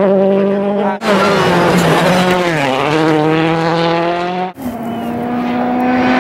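World Rally Cars' 1.6-litre turbocharged four-cylinder engines running at high revs on a gravel stage, over three clips cut together about a second in and about four and a half seconds in. Partway through, the revs drop briefly and climb again. In the last clip a Citroën DS3 WRC is approaching.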